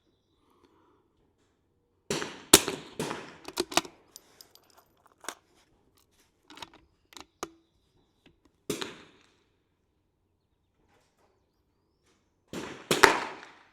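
.22 LR rimfire rifle shots on a firing line: a quick run of sharp cracks about two seconds in, a single crack near the middle, and another pair near the end. Softer clicks fall between them.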